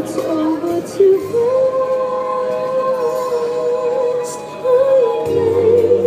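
A woman singing a long held note with vibrato, a musical-theatre ballad sung live over a slow backing track heard through the stage PA. Near the end a lower bass line comes in under a new phrase.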